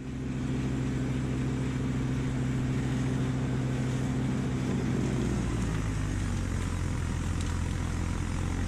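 Kubota LX2610 compact tractor's three-cylinder diesel engine running steadily with its PTO-driven front snowblower engaged. About five seconds in, the engine note drops and roughens as the blower bites into the snowbank and starts throwing snow.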